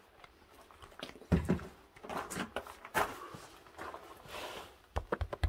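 Irregular knocks and thumps in a small echoing room, loudest a heavy low thump about a second in, then a sharp click and a quick run of clicks near the end.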